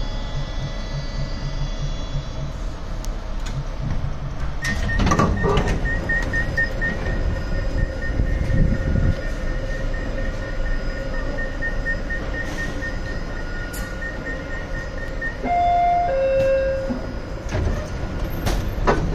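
Baltimore Metro subway train running at low speed through a station and stopping, with a steady rumble and a pulsing high tone through the middle. A two-note falling chime sounds about sixteen seconds in.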